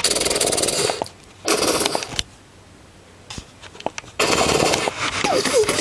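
Automatic gunfire in three bursts: one about a second long, a short one about a second and a half in, and a longer one from about four seconds in.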